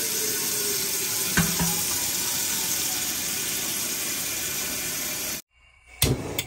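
Water from a kitchen faucet running steadily into a stainless steel pot, filling it. The flow stops abruptly about five seconds in, followed by two sharp knocks near the end.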